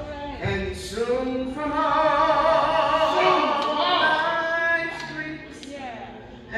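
A woman singing, holding long notes with a wavering vibrato through the middle, then falling quieter near the end.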